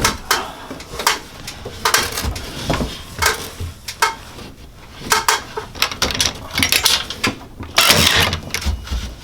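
DeWalt DC701D1 20V cordless cable stapler firing staples into wood: a series of sharp mechanical snaps a second or so apart, with the longest and loudest burst about 8 seconds in.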